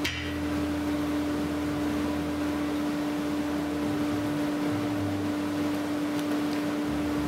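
Sliding table saw running steadily with nothing being cut: an even hum with one held tone, and a few faint clicks of thin wooden strips being handled near the end.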